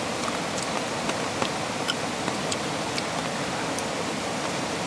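Steady rain: an even hiss with scattered sharp ticks of drops.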